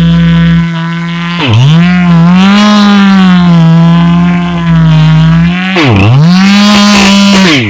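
Husqvarna 592 XP chainsaw, a 92 cc single-cylinder two-stroke, running at full throttle as it cuts low into the trunk of a standing fir. Its high, steady note dips sharply in pitch and climbs back twice, about a second and a half in and again near the end. At the very end the pitch drops away as the throttle is let off.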